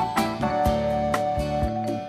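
Background music: the instrumental intro of a relaxed country-pop song, with held notes and a steady beat.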